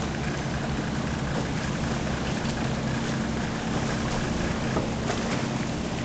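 Motorboat engine running steadily at speed, with wind noise on the microphone.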